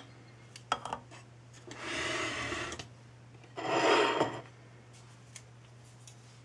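A few light clicks of a metal spoon against the ceramic slow-cooker crock, then a ceramic plate slid across the countertop in two scraping pushes, the second louder.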